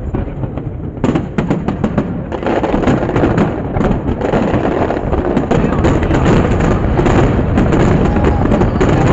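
Aerial fireworks bursting and crackling. A quick string of sharp bangs and crackles comes about a second in, then the bursts merge into a dense, continuous barrage that grows louder toward the end.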